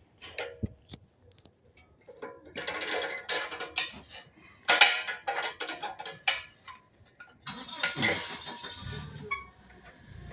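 Metallic clinks, knocks and rattles from an aluminium forklift propane cylinder and its steel hold-down strap and buckle being handled and latched as the cylinder is seated in its bracket, with a longer rustling noise near the end.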